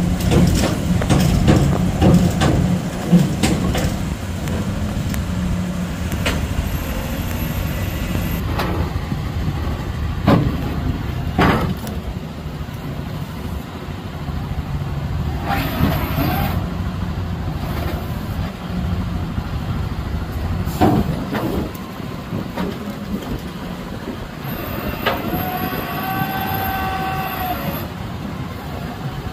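A truck engine running steadily, with scattered knocks and clanks of metal, and a whining tone held for a few seconds near the end.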